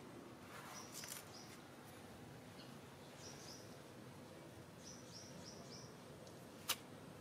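Quiet outdoor background with small birds chirping in short runs of three or four high notes, heard several times. A single sharp click sounds near the end.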